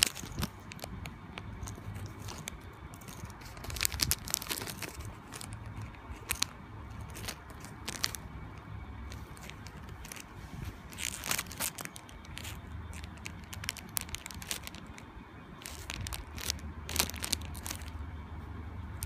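Clear plastic packaging crinkling in short, irregular bursts as it is handled, with squishy foam toys inside.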